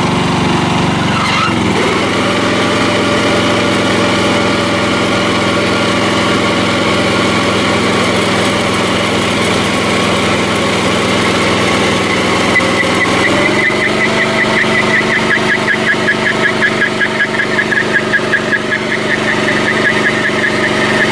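Craftsman riding lawn mower's engine running hard under load while its rear tires spin in place in a burnout, the mower held by a chain. The engine revs up about two seconds in and steps up again about two-thirds of the way through. From there a high, fast-pulsing squeal from the spinning tires joins it.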